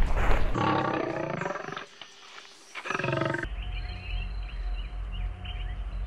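African elephants calling: a call of about a second, a short quiet gap, then a second, shorter call. Then the sound shifts to faint high chirps over a low steady rumble.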